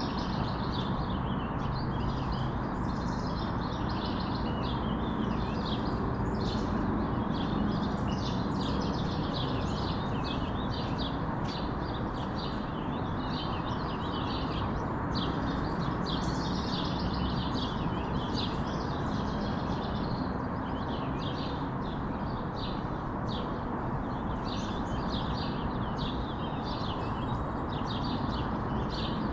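Small birds chirping and twittering continuously in a busy morning chorus, several calls overlapping, over a steady low rushing background noise.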